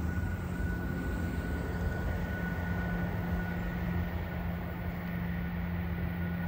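Unseen Norfolk Southern freight train's diesel locomotives working up a grade, heard as a steady low drone. A thin, steady high squeal from wheel flanges on the curve rides above it.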